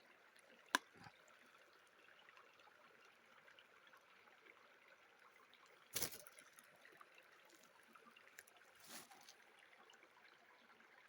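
Faint trickle of running water under a steady hiss, broken by a sharp click about a second in and a louder knock around six seconds in.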